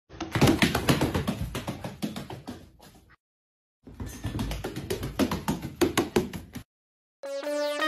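A white duck's feet pattering on a hardwood floor: a run of rapid taps fades away, stops for a moment, then comes back louder before stopping. Music starts just before the end.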